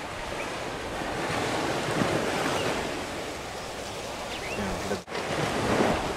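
Ocean surf washing up a sandy beach, swelling about two seconds in and again near the end, with wind buffeting the microphone.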